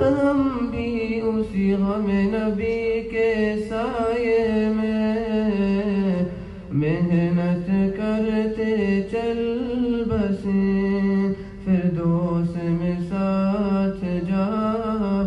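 Male voice singing an Urdu nasheed, holding long notes that waver and slide in pitch, with short breaths between phrases.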